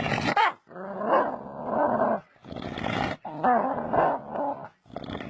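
A dog making long, grumbling, pig-like vocal noises, one after another with short breaks for breath between them.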